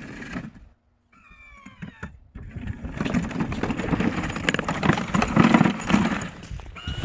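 Remote-control tracked snow plow with electric DC drive motors, working through snow: a short multi-tone motor whine, then a steady rough grinding of the drive, tracks and blade pushing snow. The sound drops out for a moment about a second in, and a rising whine comes near the end.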